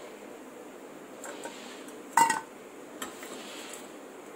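A steel ladle clinks once against a stainless steel pot about two seconds in, with a brief metallic ring. A few faint scrapes and taps come before and after it, over a steady low background noise.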